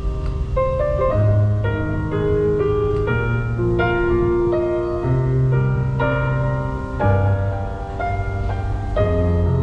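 Music: a piano melody over sustained low bass notes and chords.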